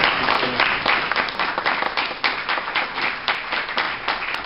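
Audience applauding: many hands clapping densely, easing off slightly toward the end.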